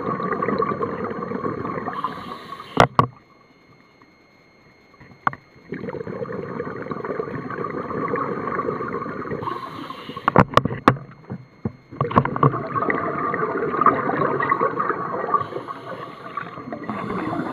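Scuba diver breathing through a regulator underwater: three long gurgling rushes of exhaled bubbles, each ending with a short hiss from the regulator, with quiet pauses between. A few sharp clicks come a few seconds in and again about two-thirds of the way through.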